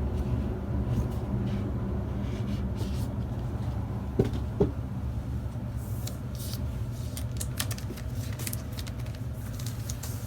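Laptop box being opened and its packaging handled: scattered rustles, scrapes and light clicks, more of them in the second half, with two short knocks about four seconds in, over a steady low hum.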